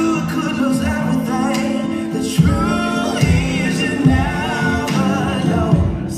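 A slow song with a lead vocal over instrumental backing, with sustained bass notes and a soft beat.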